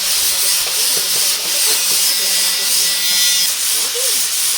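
A loud, steady hiss from a workshop tool at work, with a low hum under it that stops about three and a half seconds in.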